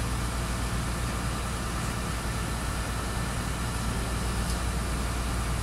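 Steady low engine drone of a canal tour boat cruising, heard inside its glass-roofed passenger cabin, with a constant low hum and an even wash of noise over it.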